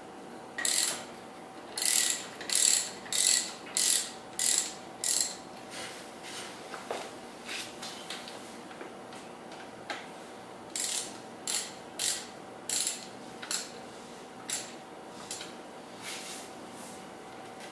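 Socket ratchet clicking in short repeated strokes, about one and a half a second, as bolts are run in at the motorcycle's front wheel axle. There are two runs, with softer strokes in between.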